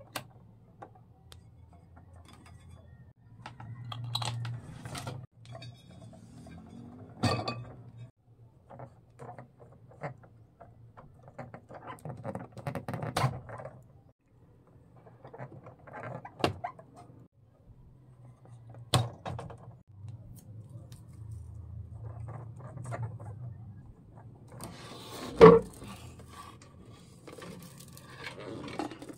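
Handling noise from work on a turntable: scattered clicks, light knocks and scrapes of plastic and metal parts, with one sharp knock near the end.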